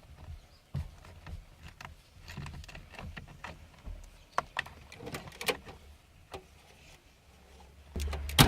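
Scattered light clicks and knocks of hand work at a car's steering wheel, tools and parts being handled, with a sharper knock near the end followed by a low rumble.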